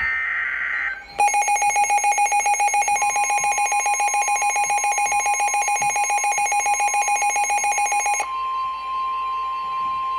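NOAA Weather Radio emergency alert signal. It opens with the tail of the warbling SAME data burst, then a rapidly pulsing electronic alarm beep for about seven seconds. From about three seconds in, the steady 1050 Hz warning alarm tone sounds and carries on alone after the beeping stops.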